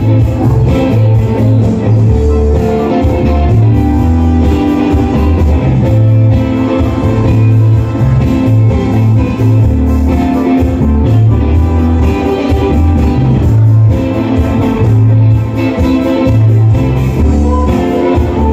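Live band playing loud through the PA: a prominent electric bass line under electric guitar, keyboards and drums.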